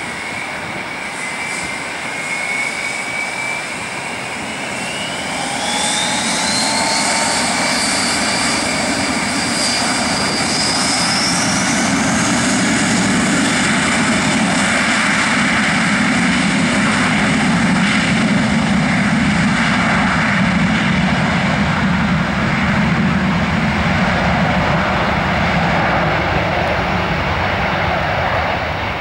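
An Airbus A320-family twin-jet airliner's engines spool up to takeoff thrust, a whine rising steadily in pitch over the first ten seconds or so. Then comes a loud, steady jet noise with a deep rumble as the airliner accelerates down the runway on its takeoff roll and rotates.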